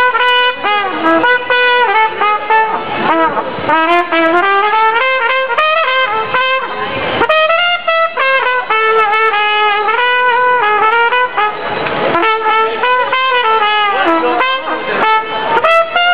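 Brass instrument, trumpet-like, playing a tune of held notes that step up and down, loud and close.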